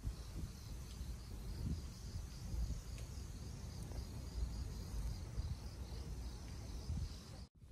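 Field crickets chirping in a steady pulsing trill, over a low rumble of wind on the microphone.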